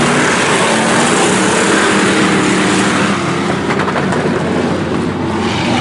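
A pack of IMCA Hobby Stock dirt-track race cars running at racing speed, several engines overlapping in a loud, steady mass of engine noise.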